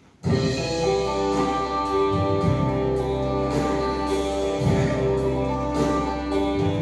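Instrumental music starts abruptly about a quarter second in, with steady held notes over a regular beat: the introduction to a song.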